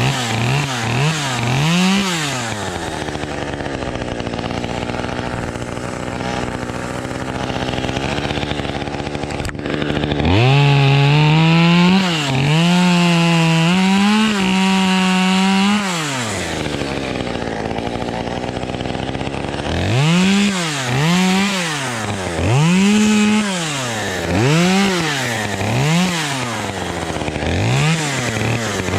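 Two-stroke chainsaw engine: quick throttle blips, a stretch of idling, then held at full throttle for about five seconds, back to idle, and a run of short revs before opening up again near the end.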